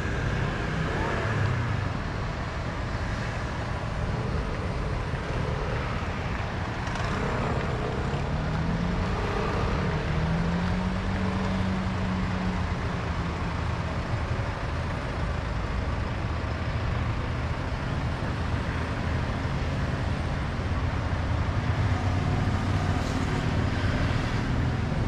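Steady street traffic noise from passing cars and motorbikes, with one engine note rising in pitch about eight seconds in and holding for several seconds.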